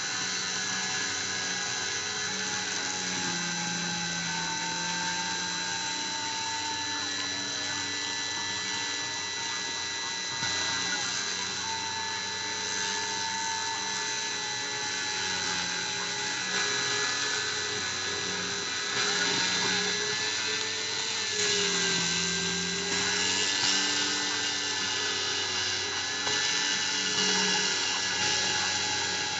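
Dremel rotary tool on a Cyclone PCB CNC mill spinning at a steady high whine while cutting into acrylic, with the machine's stepper motors humming at lower pitches that shift and glide every few seconds as the axes move.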